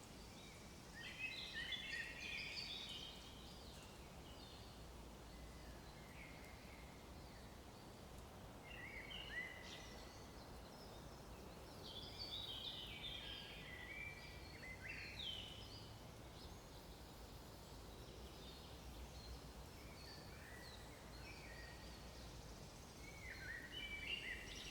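Faint outdoor ambience with scattered bursts of small birds chirping and twittering, high-pitched, coming in short clusters several times over a steady low hiss.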